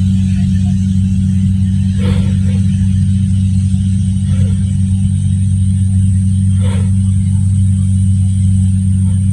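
Kubota DC-70G Plus combine harvester running steadily while cutting rice, a loud continuous engine drone with a thin high whine above it.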